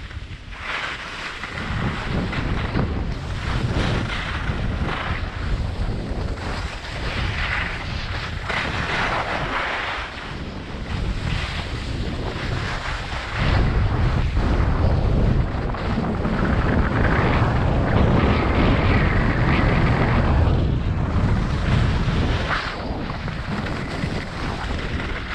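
Wind buffeting an action camera's microphone during a downhill ski run, with skis hissing and scraping over packed snow. The deep buffeting grows heavier and louder about halfway through for several seconds.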